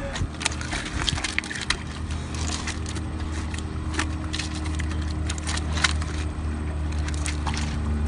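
Steady low drone of a boat engine on the water, growing slightly louder near the end, with scattered sharp clicks and knocks as a landed striped bass is handled on the shoreline rocks.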